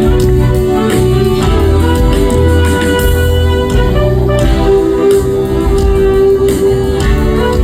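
A live funk band playing an instrumental passage: held notes from the instruments over steady drums and bass, with no singing.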